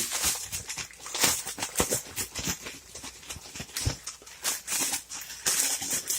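A sealed plastic zip-top bag of quartered buttermilk biscuits and cinnamon sugar being shaken, in a quick irregular run of crinkling, rattling rustles to coat the dough.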